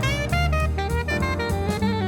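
Jazz-style background music with saxophone and drum kit; a sax note slides down at the start.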